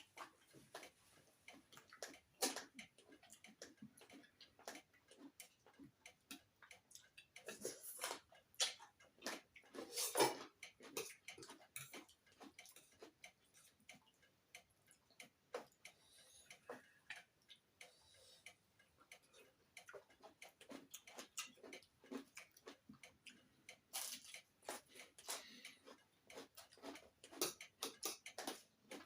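Eating sounds close to the microphone: irregular small clicks and crackles of chewing and handling food, with a few louder ones.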